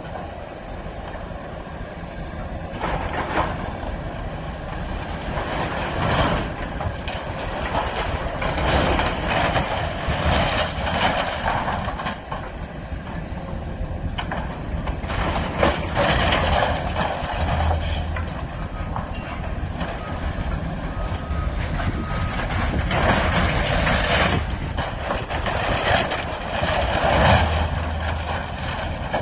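Excavator's diesel engine running under load while it tears apart a wooden grain elevator, with repeated crashes and cracking of falling timber and boards. The engine note deepens a little a few times.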